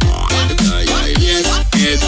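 Background electronic music with a steady, heavy beat and bass notes that slide down in pitch about twice a second.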